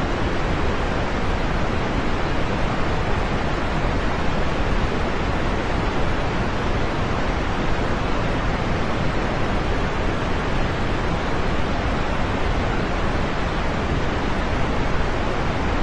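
Steady rain, a dense even hiss with no single drops or other sounds standing out.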